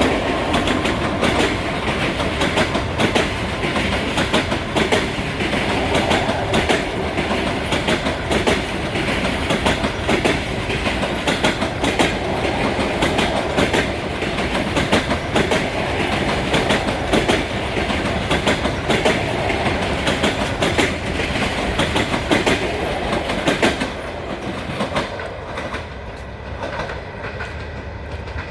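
Passenger train hauled by an EP2K electric locomotive passing at speed, its wheels clattering over the rail joints in a dense run of clicks. About four seconds from the end the sound drops and begins to fade as the train moves away.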